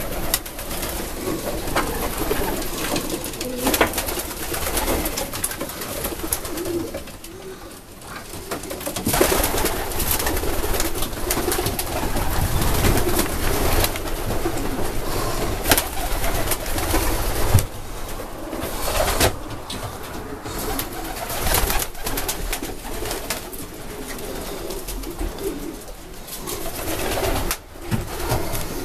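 Louis Cooremans-strain racing pigeons cooing over one another in a small loft, with a few sharp knocks.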